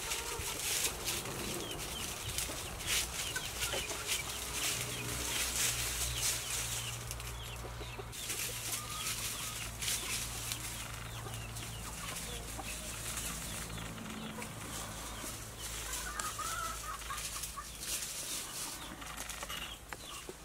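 Chickens clucking as they scratch and forage in dry leaf litter, with many quick crackles of the dry leaves underfoot. A low steady hum sits underneath for much of the middle.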